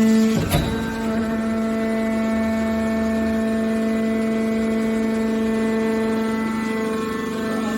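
Hydraulic scrap metal baler's power unit running with a steady whine, with one sharp clunk about half a second in.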